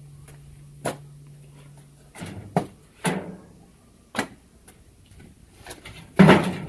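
Firewood logs knocking against each other as they are handled: five or six separate sharp knocks at irregular intervals, the loudest near the end. A low steady hum stops about two seconds in.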